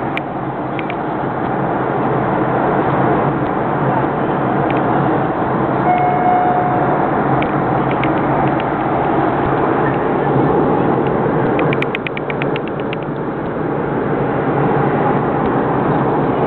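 Steady cabin noise of an airliner in flight: the drone of engines and rushing air heard from inside the cabin. A short steady tone sounds about six seconds in, and a quick run of clicks comes about twelve seconds in.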